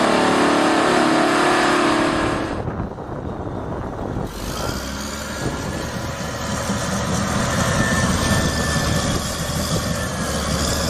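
Bulldozer's diesel engine running, spliced from more than one recording: a steady engine drone with a strong pitched hum, then an abrupt cut about two and a half seconds in to a lower, rougher engine rumble.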